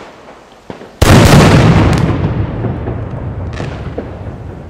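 A large firecracker (salute) goes off with one very loud bang about a second in, its sound trailing off slowly over the next few seconds. A small pop comes just before the bang and another near the end.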